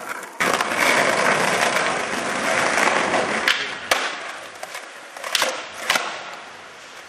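Skateboard wheels rolling loudly over rough pavement, with four sharp clacks of the board in the second half as the rolling fades.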